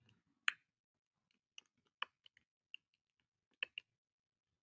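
Computer keyboard keys pressed in quiet, irregular taps, a dozen or so sharp clicks with the strongest about half a second, two seconds and three and a half seconds in.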